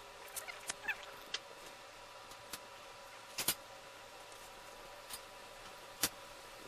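Faint steady hum with scattered sharp clicks and taps, irregularly spaced. The loudest is a double click about three and a half seconds in, and another comes about six seconds in.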